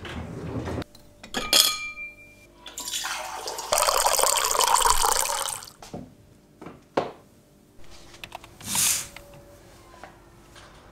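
Water running for about three seconds in the middle, with a few short knocks and clicks before and after it.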